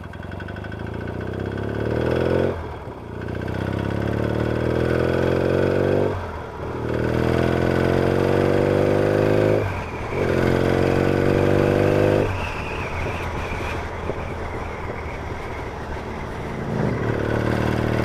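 Yamaha XS650 parallel-twin engine accelerating up through the gears: the revs climb, drop back at three gear changes, settle to a steady lower cruise, then pick up again near the end.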